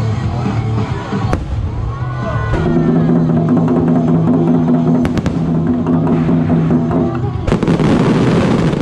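Music with long held notes plays through a fireworks display, cut by a few sharp firework bangs. About seven and a half seconds in, a loud dense burst of fireworks swamps the music.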